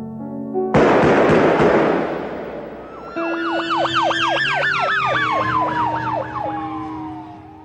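A sudden loud crash of noise that dies away over a couple of seconds, then an emergency-vehicle siren wailing up and down about three times a second, its pitch sliding lower as it fades, over a steady low tone.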